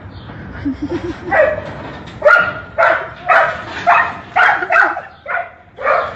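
Dog barking, a string of about ten short barks roughly two a second, starting about a second in.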